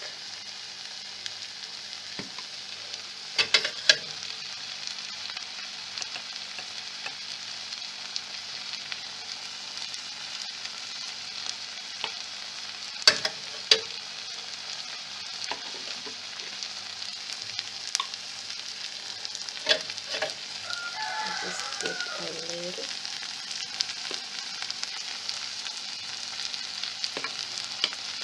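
Tomatoes, spring onions and spices frying in a steel pot, a steady sizzling hiss, with a few sharp clicks and knocks now and then.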